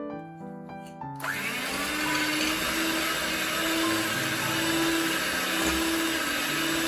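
Electric hand mixer starting up about a second in and running steadily at speed, its twin wire beaters whisking eggs and sugar in a glass bowl, with a constant motor hum under the whirr. Soft piano music plays before it starts and stays faintly under it.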